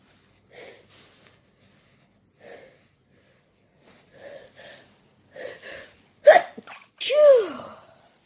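A person's sneeze build-up: several breathy gasps that come closer together and grow louder, then two sneezes about a second apart. The second sneeze is the loudest and ends in a voiced cry that falls in pitch.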